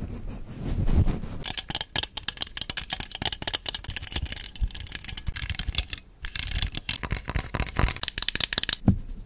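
A makeup brush is stroked softly over the microphone at first. It gives way to rapid plastic clicking and rattling from pink plastic claw hair clips handled close to the mic, with a brief pause about six seconds in and a single thump near the end.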